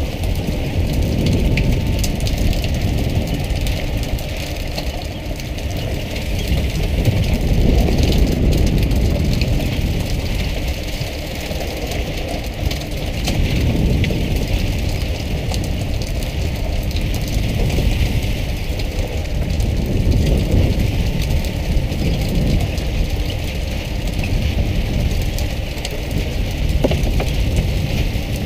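Fishing boat's engine running steadily under a continuous rush of water splashing along the hull.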